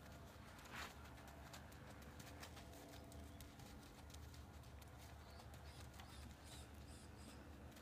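Faint hoofbeats of a horse walking on arena sand: soft, irregular thuds and scuffs.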